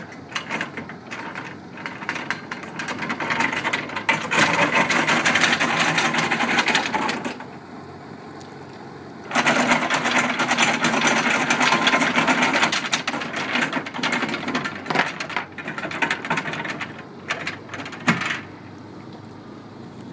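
Anchor chain rattling fast over the windlass as an Ultra stainless steel anchor self-launches from the bow roller and is winched back in, in two long runs of clatter. Near the end come a few separate clanks as the anchor comes home and seats in the bow roller.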